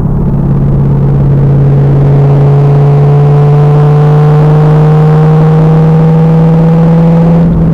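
2000 Pontiac Trans Am Firehawk's 5.7-litre LS1 V8 pulling under load on track, its pitch climbing slowly and steadily, then breaking off near the end. The sound is loud and heavy.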